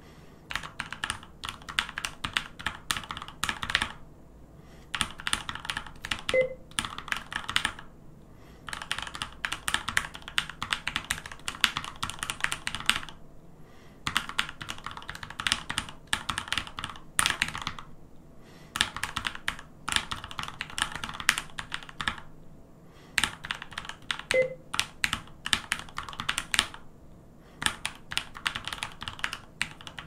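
Fast touch-typing on a Keychron K2 V2 mechanical keyboard with its switches lubed, a rapid stream of key clacks. The typing comes in runs of two to three seconds with short pauses between phrases.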